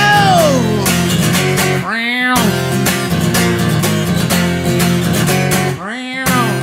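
Background music: a guitar-led song with steady low notes and sliding pitches. Rising slides come about two seconds in and again near the end, each with a short drop-out of the bass.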